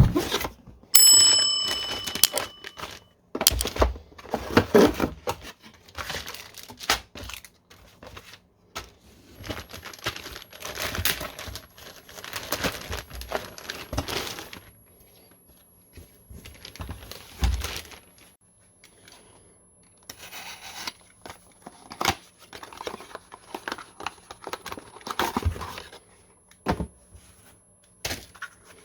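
Packaging being handled and opened: cardboard and plastic rustling, tearing and crinkling in irregular bursts, with sharp clicks and knocks. About a second in, a brief metallic ring.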